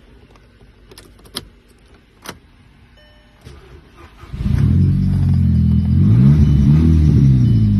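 A few clicks, then a 2007 Volkswagen Golf GTI's engine starts about four seconds in on a newly programmed spare key, its revs rising briefly and falling back to a steady idle. The start shows the new key is accepted by the car.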